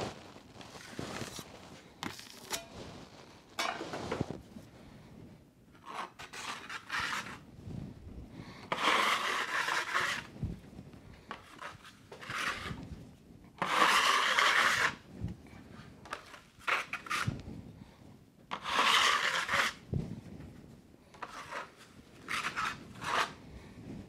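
Wide steel drywall knife scraping setting-type joint compound (hot mud) across a ceiling seam, spreading and flattening the final skim coat. It comes as a series of scraping strokes, the three longest each about a second and a half, with shorter scrapes in between.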